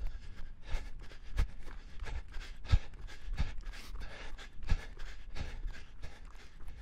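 A person breathing hard while running, panting in and out, with regular thudding footfalls about one and a half a second.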